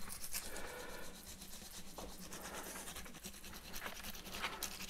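Peeled garlic clove rubbed quickly back and forth on a wetted ceramic grater dish, making a quiet, fast, fine scratching.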